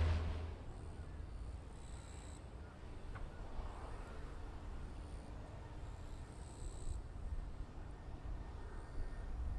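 Airport ambience after an aircraft passes: the plane's sound dies away within the first half second, leaving a low, steady rumble with faint, short high-pitched tones now and then.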